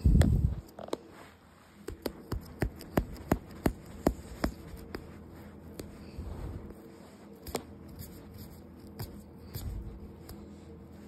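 Hands handling a plush toy and peeling sticking plasters off it: a knock near the microphone at the start, then a run of short, sharp clicks and crackles for a couple of seconds, with a few more scattered later.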